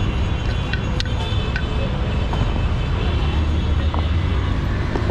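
Steady low street-traffic rumble, with a few sharp clicks and taps of a kitchen knife against a wooden chopping board and a steel bowl.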